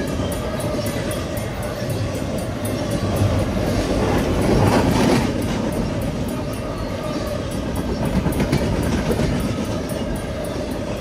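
Double-stack container freight cars rolling past at speed: a steady rumble of steel wheels on rail with clickety-clack over the rail joints, swelling louder about four to five seconds in.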